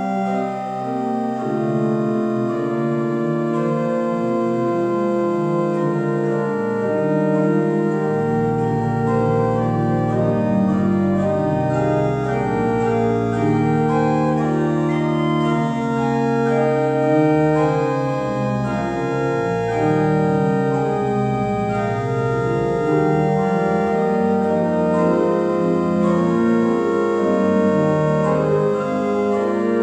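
Pipe organ playing several lines of held, overlapping notes, with deep pedal bass notes joining about eight seconds in.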